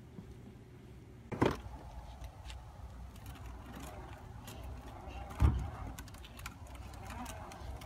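Electric motor of a battery-powered ride-on toy utility vehicle whining steadily as it drives, starting with a sudden thump about a second and a half in. A loud low thump comes about five seconds in.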